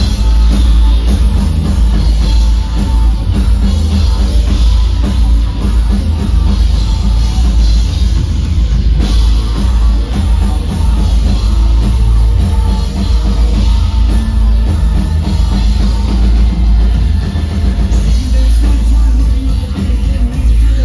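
Live electro-industrial band playing loud, with heavy bass and a pounding drum beat, coming in at full volume at the very start.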